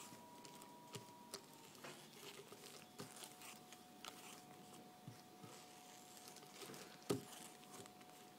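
Near silence with faint crinkling of plastic wrap and soft scattered clicks as a spray can is rolled over clay beneath the plastic, with one louder knock about seven seconds in.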